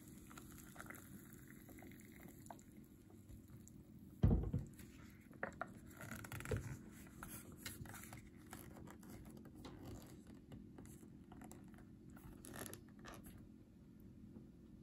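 Hot water pouring quietly into a paper instant-noodle cup, then a single loud thump about four seconds in. After that come small crinkles and clicks as the cup's paper lid is folded down and pressed shut by hand.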